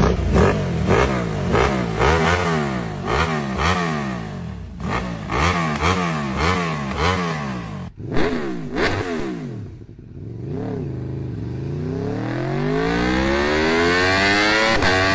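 Engines revving: a run of quick throttle blips, pitch rising and falling about twice a second, broken twice by short cuts, then one long steady climb in revs that holds high near the end.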